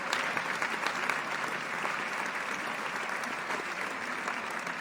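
Large audience applauding in a theatre: dense, steady clapping of many hands.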